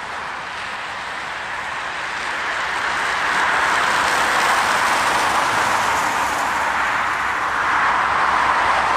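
Highway traffic: tyre and engine noise of vehicles passing at speed, a steady rush that swells about three seconds in and stays loud, easing a little and building again near the end.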